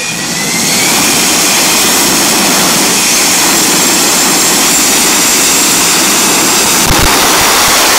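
Jet engine of a drag-racing semi truck spooling up, its whine climbing in pitch in the first second, then running steadily at high power, very loud.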